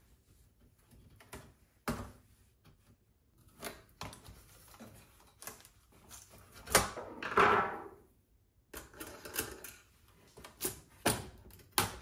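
Scattered clicks and clacks of screwdrivers and a steel shield being handled on the opened chassis of an HP Pavilion 24 all-in-one PC, with a longer, louder rasp about seven seconds in.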